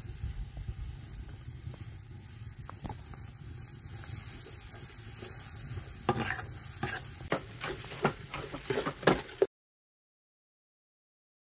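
Chopped onions sizzling in oil in a steel pot, then, about six seconds in, a metal spoon scraping and clinking against the pot as they are stirred. The sound cuts out completely a couple of seconds before the end.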